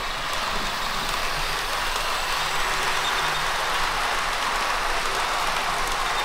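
Model passenger train running past at speed on the layout's track: a steady rumble of coach wheels on the rails with a faint hum underneath.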